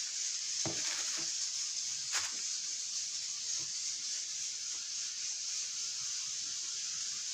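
Faint crinkles and ticks of plastic wrap being handled under raw chicken breasts, with one sharper click about two seconds in, over a steady hiss.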